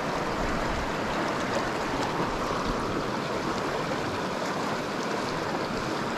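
Stream water rushing steadily over a shallow riffle of rocks and boulders.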